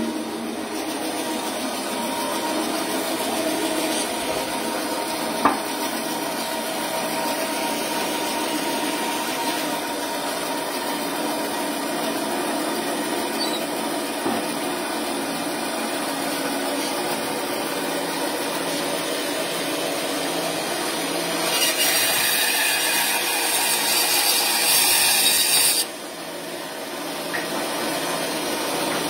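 Electric bandsaw running steadily, with a louder harsh rasping stretch of about four seconds near the end as the blade cuts through partly frozen bone. A single sharp click about five seconds in.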